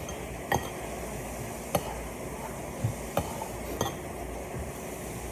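Cutlery clinking against ceramic plates and bowls during a meal: about five sharp clinks, irregularly spaced, over a steady low hum.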